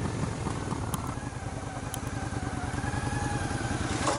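Motorcycle engine running steadily at low revs, heard from the bike's onboard camera.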